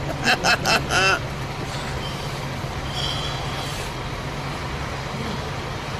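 Steady low rumble of a vehicle engine idling on the street. A man gives a short laugh of four quick bursts about a second long near the start.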